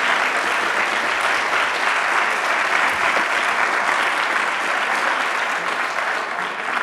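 An audience applauding steadily, easing off a little near the end.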